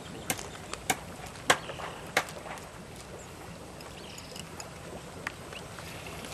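Sharp water splashes from a hooked giant Siamese carp thrashing at the surface as it is brought in to the landing net. There are four strong splashes in the first couple of seconds, then fainter, scattered ones.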